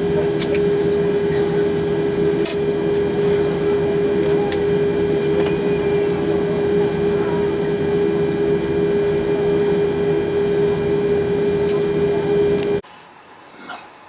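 Airliner cabin noise in an Airbus A340-600 after landing: a steady loud hum with one strong held tone and fainter higher tones, with scattered light clicks and knocks. Near the end the hum cuts off abruptly, leaving a much quieter background.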